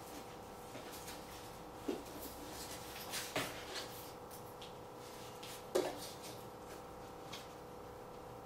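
Dog rummaging through spilled kitchen garbage: scattered rustles of wrappers and light knocks of trash items on a tile floor, loudest about two, three and six seconds in, over a steady low hum.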